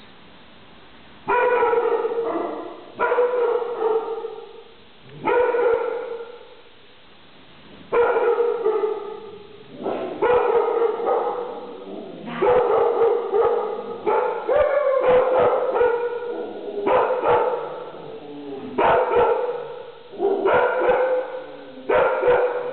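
Dogs in kennel cages barking in repeated bouts of a second or two each, one after another with short pauses.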